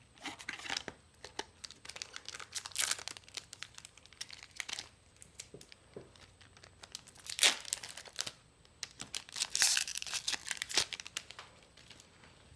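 Trading card booster pack wrappers being torn open and crinkled: irregular bursts of crackling rustle, loudest about seven and a half seconds in and again around ten seconds.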